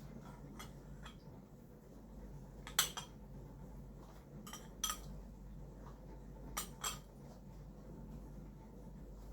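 A few sharp clinks of a metal utensil against dishware over a faint steady hum: one about three seconds in, then two pairs of quick taps a little before five and before seven seconds.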